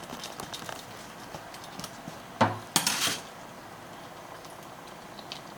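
Kitchen utensils and dishes clinking and knocking. There are light clicks, then one sharp knock about two and a half seconds in and a short noisy clatter just after it.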